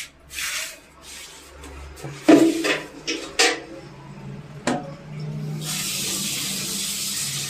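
Water in a one-piece toilet after a flush: a few sharp knocks and clunks about two to four seconds in, then a steady hiss of running water from about five seconds in.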